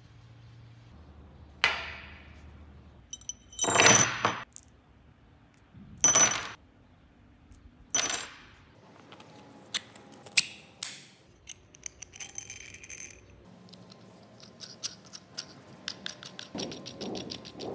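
Steel bolts, washers and nuts clinking against each other and a wooden tabletop: four sharp metallic clinks with a high ring, then lighter ticks and rattles, with a run of quick small ticks near the end as a nut is run onto a bolt.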